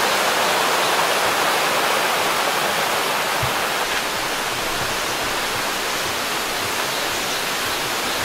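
Small mountain stream rushing over mossy rocks in little cascades: a steady rush of water, slightly quieter from about four seconds in.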